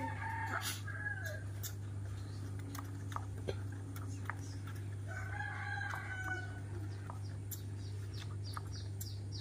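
A rooster crowing twice, once at the start and again about five seconds in, over a steady low hum.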